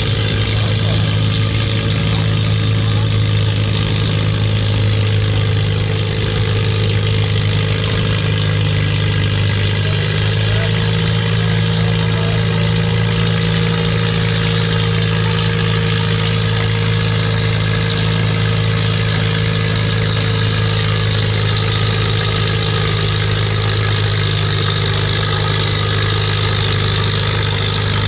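Tractor engine idling at a steady speed, with a low, even hum that does not rise or fall.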